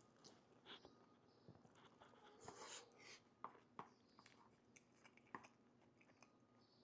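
Faint close-up chewing of a mouthful of chili-topped pastrami fries: scattered soft mouth clicks and a few brief smacks.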